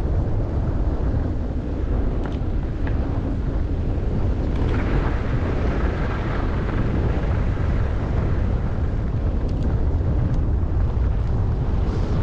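Wind rushing over the microphone of a skier going downhill, a steady low rumble, with the hiss and scrape of skis on snow swelling from about four to eight seconds in.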